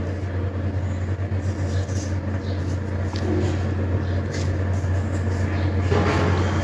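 A steady low hum under a faint noisy background, with a few light ticks of handling near the start and about four seconds in.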